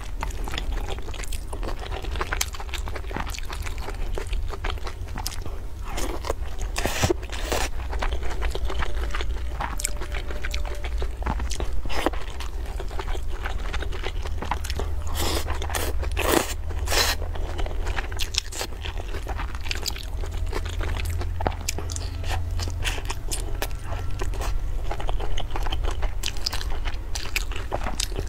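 Close-miked eating: wet chewing and crunching with many irregular small clicks, and a spoon scraping against the bowl, over a steady low hum.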